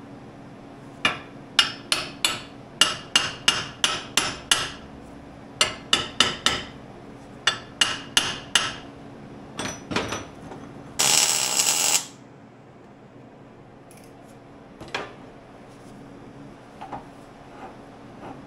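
Hammer blows on steel fabrication pieces: sharp, ringing strikes about three a second, in three quick runs over the first nine seconds. About eleven seconds in there is a harsh one-second burst of hiss, then only a few faint knocks.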